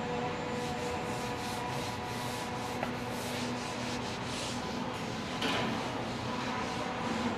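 A hand rubbing and smoothing over a leather hide in quick repeated brushing strokes, about two or three a second, with one louder stroke near the end. A steady factory hum runs underneath.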